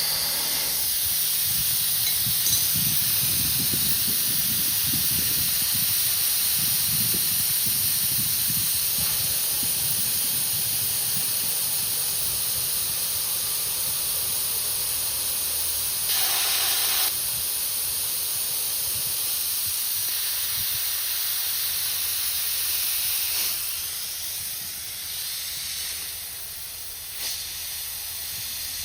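Compressed air hissing steadily from a PCP airgun's regulator air system, high-pitched and even, with a brief louder surge about 16 seconds in and easing off over the last few seconds.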